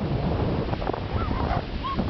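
Wind rumbling on the microphone, with a couple of short, high yips from a small dog in the second half.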